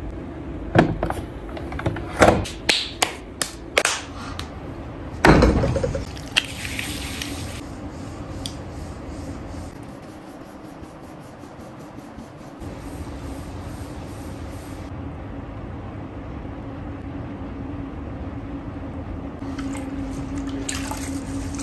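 Soft lump of clay handled by hand: about half a dozen sharp slaps in the first six seconds as it is patted and thrown down. Then an electric pottery wheel hums steadily under wet, squishy sounds as the wet clay is centered and pulled up.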